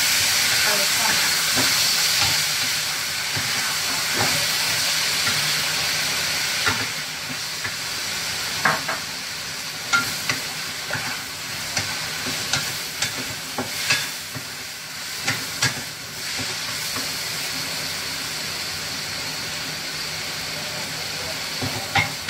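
Cabbage stir-fry sizzling in a hot non-stick wok: a loud hiss in the first six seconds as an ingredient is tipped in from a bowl, easing afterwards into a steadier frying sizzle. A wooden spatula knocks and scrapes against the wok about a dozen times in the middle and once near the end.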